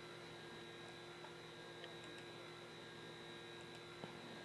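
Near silence: a faint, steady electrical hum of the recording, with a single soft click about four seconds in.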